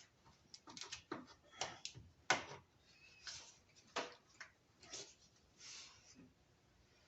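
Faint, irregular clicks and taps with a few short scraping strokes, from hand work refitting the upper radiator hose and its clamp on the radiator neck.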